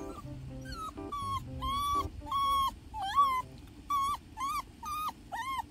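A dog whining in a run of about nine short, high-pitched whimpers, one every half second or so.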